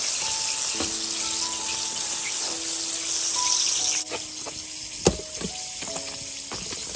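Chicken deep-frying in a pan of hot oil, a steady sizzle that drops away suddenly about four seconds in. A sharp click of metal tongs against a stainless steel strainer comes about a second later, with soft background music under it all.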